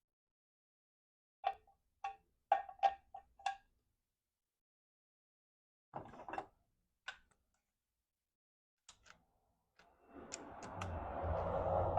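Light metallic clicks and taps of hand tools working on a tight fastener on a motorcycle's brake assembly. A quick run of about six clicks comes a second and a half in, and a few more follow later. Near the end a louder rasping noise lasts about two seconds.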